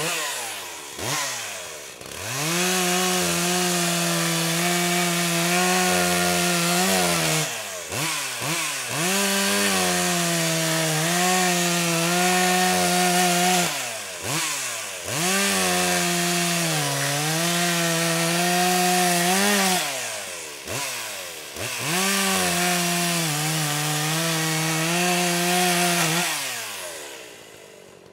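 Chainsaw running up to full speed in four long bursts of about four to five seconds each, winding down in pitch after each, with short revs in between; it fades out near the end.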